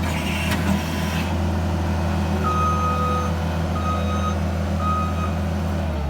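Case SR240 turbo diesel skid steer running steadily while its backup alarm beeps a few times, one longer beep followed by shorter ones. The engine settles lower right at the end.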